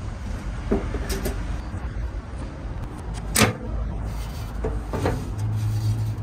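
Sheet-metal conduit box knocking and clunking as it is set onto the top of a battery cabinet and seated over its mounting bolts, with one sharp loud knock about three and a half seconds in and a few lighter clicks. A low steady rumble runs underneath.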